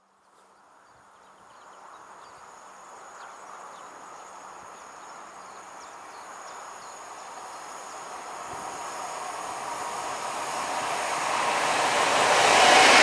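Freight train hauled by an ET26 (Newag Dragon 2) electric locomotive with a rake of dumpcars, approaching: a rushing wheel-and-rail noise that grows steadily louder and is loudest near the end.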